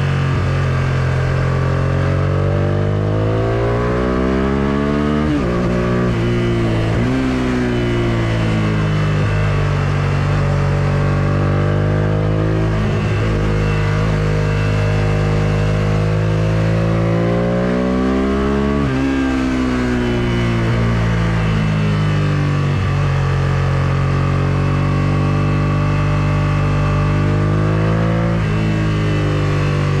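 Suzuki SV650S 645 cc 90-degree V-twin with an Akrapovic full exhaust system, ridden hard: the engine note climbs in pitch as the revs build, then drops sharply at gear changes about five times over the stretch.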